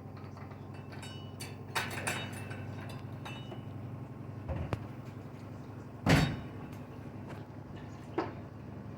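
LG washing machine running, its drum turning with a steady low hum, broken by a few knocks from inside the drum, the loudest about six seconds in.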